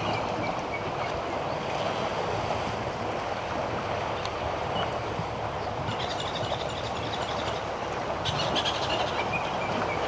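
A herd of African elephants wading and swimming through a waterhole, a steady churning and sloshing of water. A few short high chirps sound over it, in clusters about halfway through and near the end.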